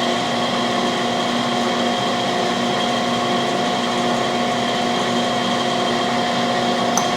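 Steady electric machine hum from a cam grinding machine's motors running, with several constant pitched tones over a whirring noise.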